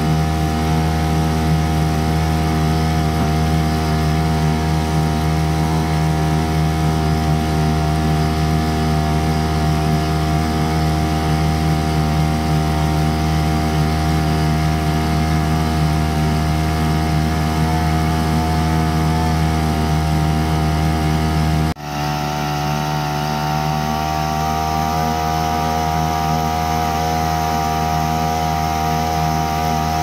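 Small Hangkai 3.6 hp outboard motor running steadily at full throttle. The sound breaks off for an instant a little past twenty seconds in, then carries on at the same steady pitch.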